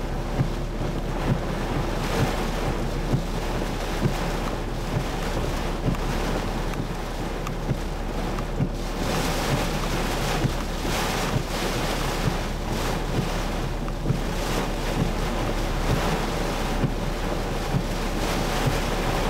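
Heavy tropical-storm rain and wind beating on a car, a steady roar of rain on the roof and windshield. A light knock from the windshield wipers comes about once a second.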